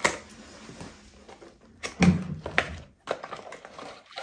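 A parcel being unpacked by hand: packaging rustling, with a sharp click at the start and a cluster of knocks and clicks about two seconds in.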